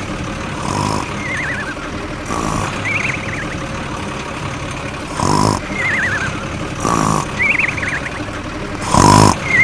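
Short horn-like beeps repeating every one to two seconds over a steady engine hum, with warbling chirps that wobble up or down in pitch between them.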